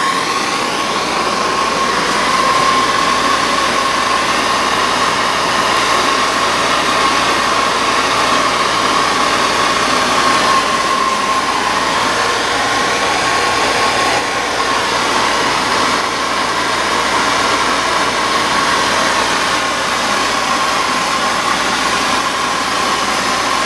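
Plumbing torch flame burning steadily: a loud, even rushing hiss with a steady whistle-like tone in it, heating a branding iron to a glow.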